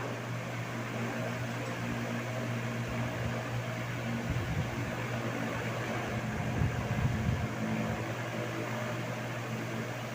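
Tron 60 cm wall fan running steadily: an even electric-motor hum under the rush of moving air. Its airflow buffets the microphone with low rumbles about four seconds in and again around seven seconds.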